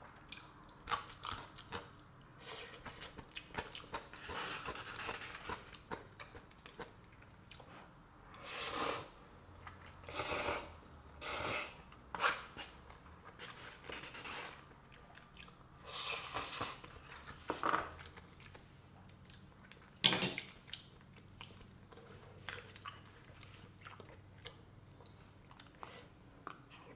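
Close-up eating sounds of a person chewing and slurping black bean noodles with seafood, with small wet clicks and several short noisy slurps. A single sharp click about two-thirds of the way in is the loudest sound.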